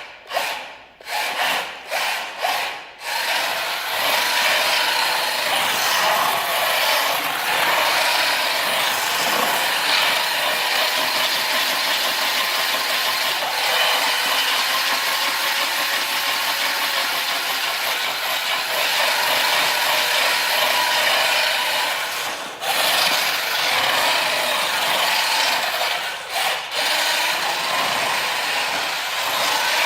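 The homebuilt Featherweight's drive running on a test run: a few short bursts of power in the first three seconds, then a steady, even hiss at full power, easing off briefly twice, about 22 and 26 seconds in.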